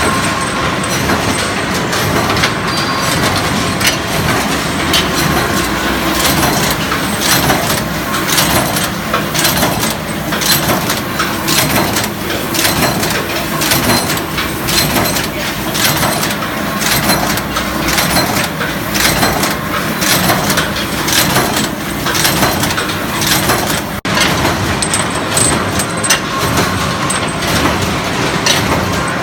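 HXB-204L four-stage bolt forging machine running, making M20 x 70 mm hexagon bolts: a steady, loud mechanical din with sharp knocks repeating at a regular pace.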